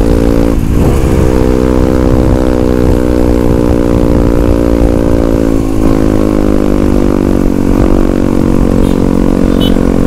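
Yamaha WR155R's single-cylinder four-stroke engine running steadily while riding. About half a second in there is a short break in the revs, which then rise again.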